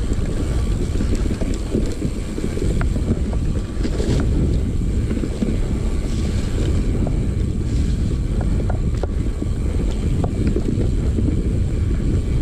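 Heavy wind buffeting on the camera microphone of a mountain bike riding fast down a dirt singletrack, a loud, constant low rumble, with scattered sharp ticks and rattles from the bike over the trail.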